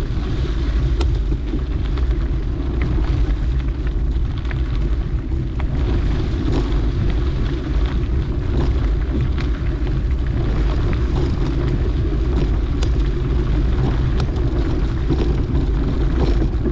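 Wind buffeting the microphone of a moving mountain bike, a steady low rumble, with the tyres rolling on the dirt trail and scattered light clicks and rattles from the bike.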